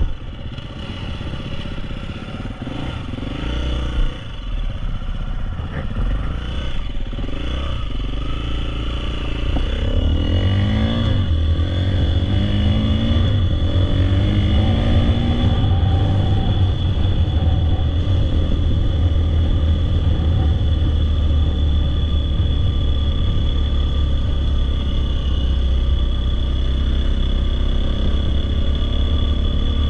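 Dirt bike engine running: a few revs that rise in pitch over the first dozen seconds as the bike pulls away, then a steady drone as it rides along.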